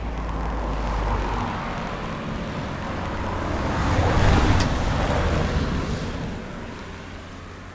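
A road vehicle passing on the adjacent road: a rushing tyre-and-engine noise that swells to a peak about four seconds in and then fades away. Low wind rumble on the microphone near the start.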